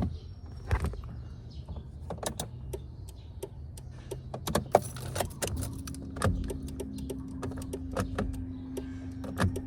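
Scattered clicks, light knocks and rattles of car parts and tools being handled while the brake light switch is refitted, over a steady low hum; a steady tone joins a little past halfway.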